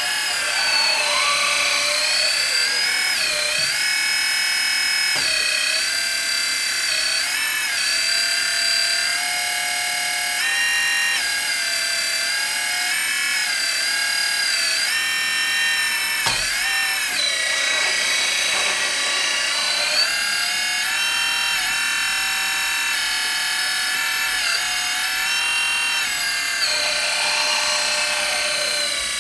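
Electric hydraulic pump of a 1/14-scale Kabolite K350 RC hydraulic excavator running, its whine gliding up and down and stepping between pitches as the boom, arm and bucket are worked.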